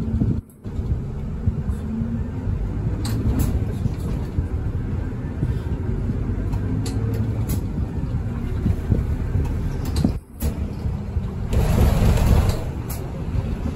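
Interior noise of a moving city bus: a steady low rumble of engine and road, with scattered rattles and clicks. A louder rushing hiss comes near the end, and the sound cuts out briefly twice.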